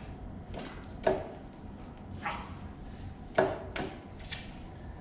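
Metal tools and engine parts clanking, about five separate knocks. The two loudest, about a second in and past the middle, ring briefly like struck metal.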